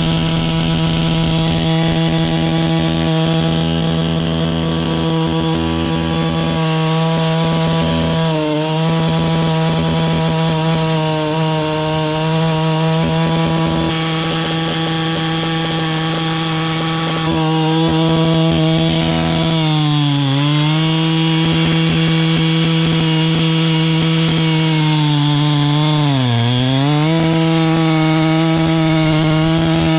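Large Husqvarna two-stroke chainsaw running at full throttle while cutting through a big log, its revs sagging briefly and recovering three times as it loads up in the cut.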